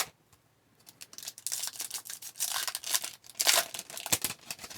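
Foil wrapper of a hockey card pack being torn open and crinkled: a run of crackling rips and rustles starting about a second in.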